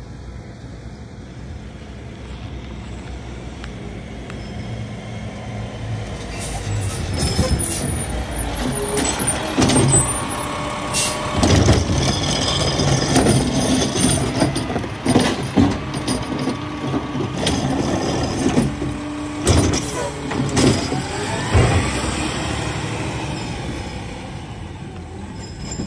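Mack automated side-loader garbage truck pulling up, its diesel engine running and air brakes hissing, as its hydraulic arm grips a wheeled trash cart, lifts and dumps it and sets it back down. Many sharp clanks and bangs fill the middle stretch, and near the end the engine climbs in pitch as the truck pulls away.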